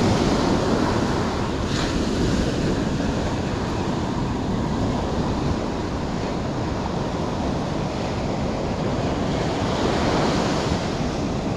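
Ocean surf breaking and washing up a sandy beach: a steady rush of water, with wind on the microphone.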